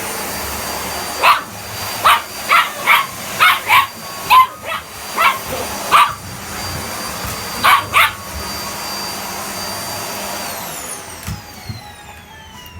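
A vacuum cleaner runs with a steady high whine while a Chihuahua–dachshund mix puppy barks at it about eleven times in quick, sharp barks. Near the end the vacuum's motor winds down, its whine falling in pitch.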